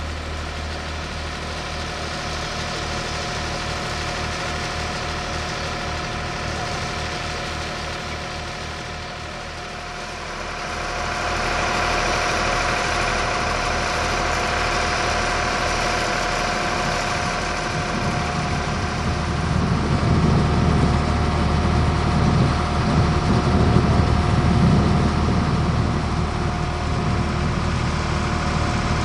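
Diesel locomotive engine idling with a steady hum and a held whine. It gets louder about a third of the way in, and from about two-thirds in a deeper, heavier rumble joins.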